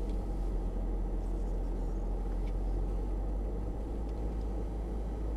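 Mercedes-Benz GL-Class SUV driving over a rough dirt off-road track, heard from inside the cabin: a steady low rumble of engine, drivetrain and tyres on the uneven ground.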